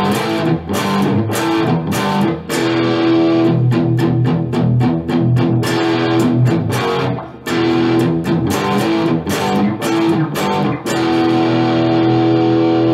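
Electric guitar playing a rock riff: picked notes on the open low E strings, then power chords on G and A.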